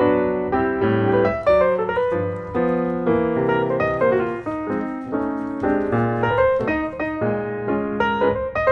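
Background piano music, a steady run of struck notes with a lower accompaniment.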